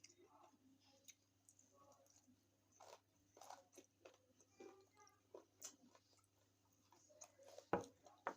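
Faint, close-up chewing and wet mouth sounds of someone eating stuffed cabbage rolls and chicken, with scattered small clicks. A sharper knock near the end is the loudest sound.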